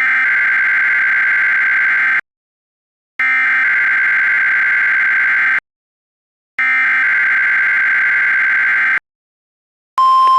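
Emergency Alert System SAME data signal: three identical bursts of harsh warbling digital tones, each about two and a half seconds long with a short gap between them. Near the end a single steady NOAA Weather Radio warning alarm tone begins.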